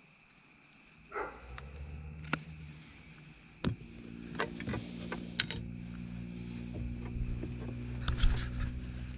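A steady low motor hum starts about a second and a half in and grows louder from about four seconds, with scattered clicks and knocks of things being handled in the boat.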